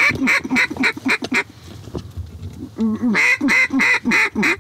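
Duck call blown by a hunter: quick runs of loud quacks, about five a second, each note falling in pitch, with a short break about a second and a half in before the calling starts again.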